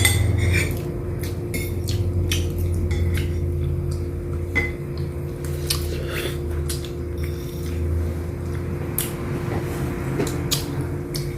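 Cutlery clinking and scraping on plates while eating, as scattered light clicks over a steady low hum.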